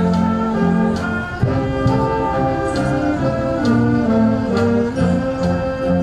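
Band music led by brass instruments playing sustained chords, with the notes changing about every half second to a second.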